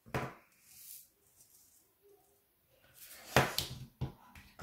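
A few sharp plastic clicks, then a short loud clatter about three seconds in: a compartmented plastic tray of diamond-painting drills being handled and set down.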